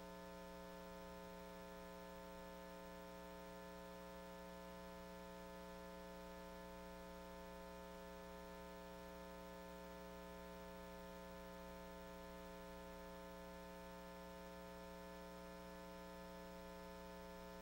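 Faint, steady electrical mains hum, a low buzz that never changes, with nothing else heard.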